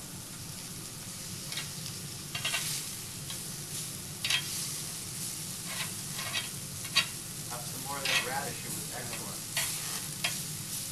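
Slices of beef sizzling on a tabletop Korean barbecue grill in a steady hiss, with short sharp clicks of metal tongs against the grill as the meat is turned.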